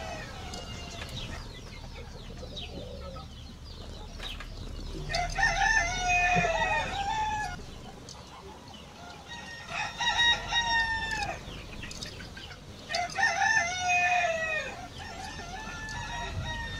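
Roosters crowing: three long crows, each about two seconds, with the pitch falling away at the end, a few seconds apart.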